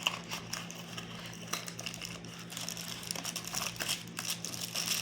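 Cardboard box packaging being handled, rustling and crinkling with scattered small clicks and taps as the mouse is pulled from its cardboard insert, over a faint steady hum.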